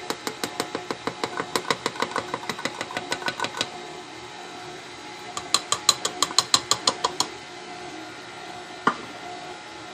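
KitchenAid stand mixer kneading stiff bread dough with a dough hook: a steady motor hum with fast rhythmic knocking, about six knocks a second, as the heavy dough slaps around the bowl. The knocking stops for a couple of seconds, comes back, and a single knock sounds near the end.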